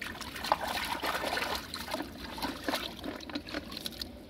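Hands splashing and sloshing in shallow muddy water, with trickling and dripping. Busiest and loudest for the first second and a half, then lighter, scattered splashes.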